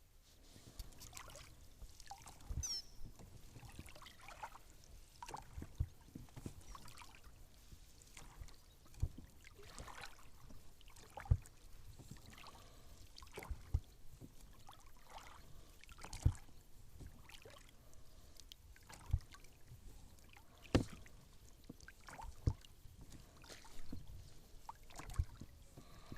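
Small boat being rowed: oars knocking and splashing every second or two, over a quiet water background.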